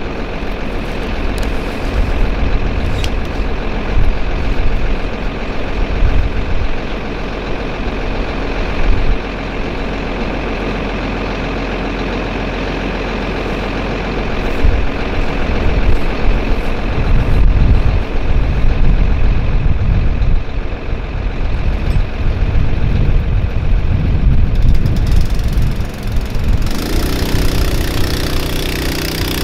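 A pump motor running steadily while liquid nitrogen fertilizer is transferred by hose into the side-dress applicator's tank, with irregular low rumbles mixed in. Near the end a steadier, lower hum sets in.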